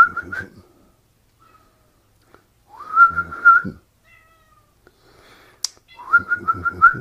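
A person whistling three times to call a cat, about three seconds apart. Each call is a short upward slide into a steady, slightly wavering note held for about a second.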